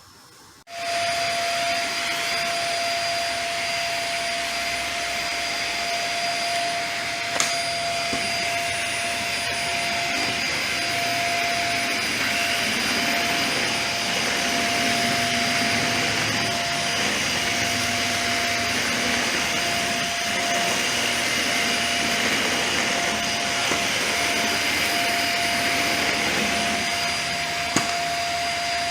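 A Dyson vacuum cleaner switches on about a second in and runs steadily with a constant high whine as it sucks oil off a concrete floor. Two light knocks are heard, around a quarter of the way in and near the end.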